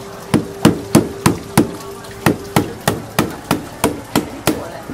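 A mallet striking the end of a wooden-handled oyster knife in quick, even knocks, about three a second with a short pause near two seconds in, driving the blade into a giant oyster's shell to pry it open.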